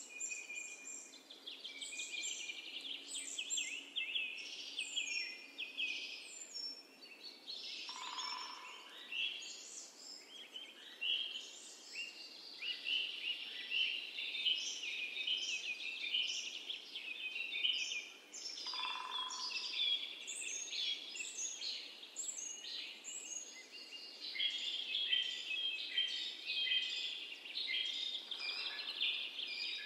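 A chorus of many songbirds chirping and trilling together in a dense, continuous stream of short high calls. A lower single note cuts through twice.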